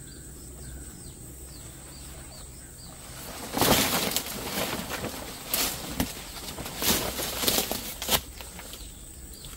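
Plastic fruit bag crinkling and rustling in irregular bursts as it is wrapped around a young jackfruit on the tree, starting about three and a half seconds in.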